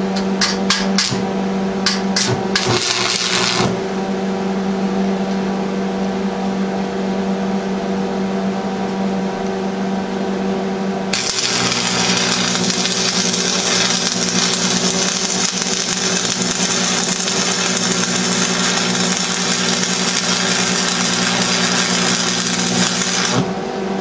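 Electric arc welding a steel bracket, a few clicks and a short hiss near the start, then a continuous crackling arc from about halfway through that stops shortly before the end. A steady electrical hum runs underneath.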